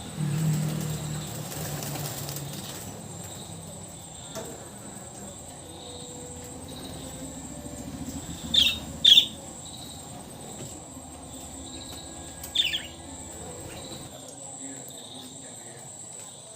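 Lovebirds fluttering their wings in a cage for the first couple of seconds, then three short, sharp high chirps, two close together and one a few seconds later, over a steady high chirring of crickets.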